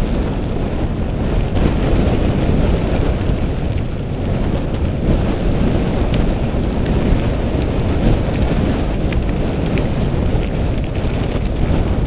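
Wind buffeting a helmet camera's microphone as a mountain bike rolls fast down a loose gravel track, with the crunch and rattle of the tyres and bike on the stones heard as small ticks through a loud rumble.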